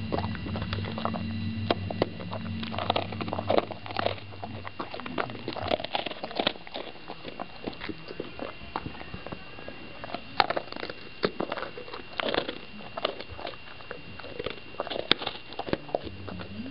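Dog chewing a cookie treat: irregular crisp clicks and crunches of its teeth on the biscuit. A low steady hum sits underneath for the first five seconds or so, stops, and comes back near the end.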